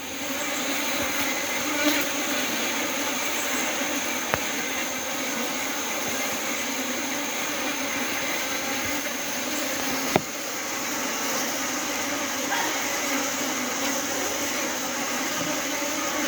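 Steady buzzing hum of a honeybee swarm in flight around a hive. The bees are milling back to the box because a guard strip across the entrance keeps the queen inside.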